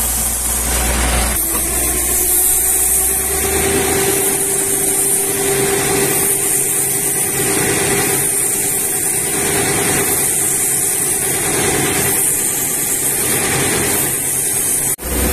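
Truck-mounted water-well drilling rig running steadily, its engine under a loud hiss as wet rock cuttings and water spray up out of the borehole around the turning drill pipe. The sound drops out for a moment near the end.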